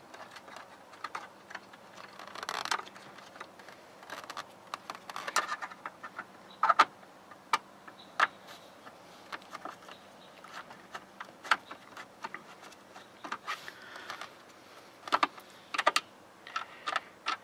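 Irregular light clicks and rattles of small hard parts being handled as a cargo-net cassette is fitted and tensioned, some clicks sharper than others.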